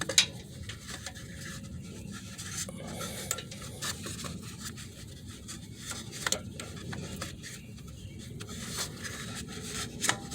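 Scattered light clicks and rubbing from hands handling the ABS sensor wire and its clips, over a steady low rumble.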